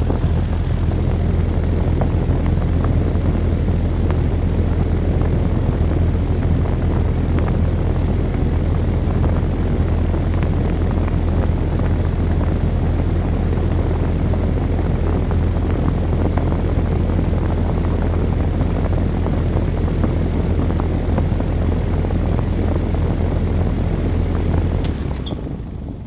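Goodman central air-conditioner condensing unit with a replacement scroll compressor, running with a loud, steady hum under the condenser fan's noise. About 25 seconds in it shuts off: the compressor hum cuts out at once and the fan winds down.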